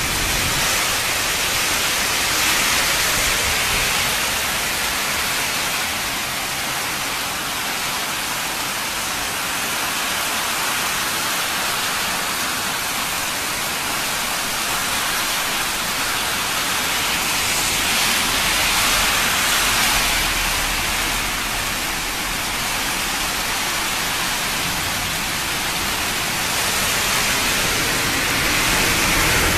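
Heavy rain pouring down with runoff water rushing across a road: a steady hiss that swells a little now and then.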